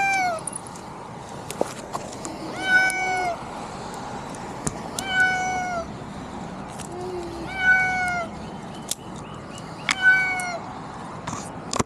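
A frightened house cat stuck high in a tree meowing in distress: long, drawn-out meows that rise and fall in pitch, about four of them, one every two and a half seconds or so.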